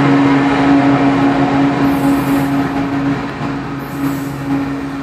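Diesel freight locomotive of a loaded coal train passing and moving away, its engine's steady low hum over rail noise slowly fading.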